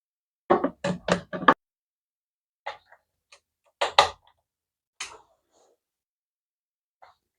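Knocks and clicks of a Bluetooth speaker's casing and parts being handled and fitted together during reassembly: a quick run of about five knocks, then scattered single taps.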